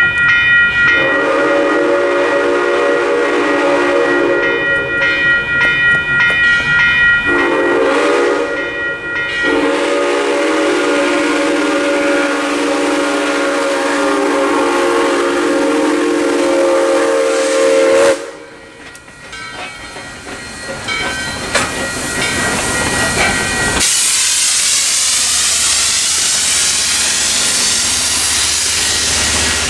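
A steam locomotive's chime whistle blows long blasts for the crossing, the last held about eight seconds and cut off sharply about 18 s in, over the steady ringing of the crossing's electronic bell. From about 24 s in, the train passes over the crossing with a steady loud rush and rail clatter.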